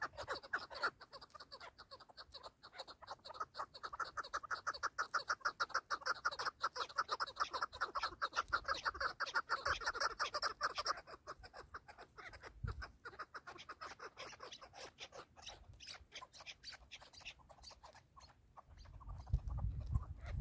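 Chukar partridge calling: a fast, steady run of short clucking notes that thins out and fades about halfway through. A low rumble comes in near the end.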